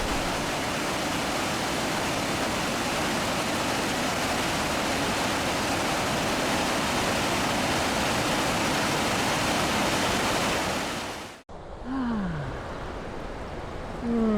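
Steady roar of white water rushing over the rocks of river rapids and a waterfall. About eleven seconds in it cuts off suddenly to a quieter rush of flowing water, with two short falling pitched sounds near the end.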